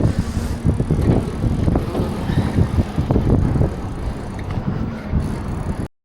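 Wind buffeting and rumbling on a small action camera's microphone while riding through city streets, cutting off abruptly shortly before the end.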